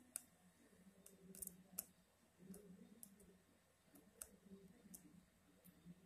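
Near silence with faint, irregular clicks from a laptop being clicked and scrolled, about eight in six seconds, over a faint low hum.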